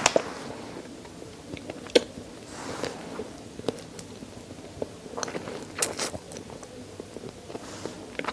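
Close-miked chewing and gnawing on chicken neck bones: wet mouth clicks and small crunches, with a single sharp crack about two seconds in and a busier run of crunching around the middle.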